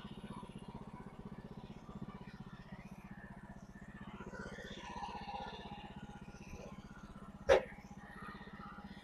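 Portable sawmill's engine idling steadily, with one sharp knock near the end.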